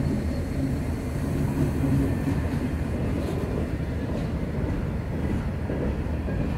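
Freight train passing close by: a diesel locomotive's engine rumbles as it goes past, then the freight cars roll by with steady wheel-and-rail noise.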